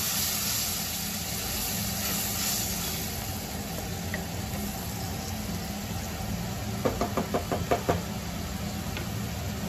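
Tomato masala with water cooking in a pan, a soft hiss of steam over a steady low hum. About seven seconds in, a quick run of about seven sharp knocks, a cooking spoon striking the pan.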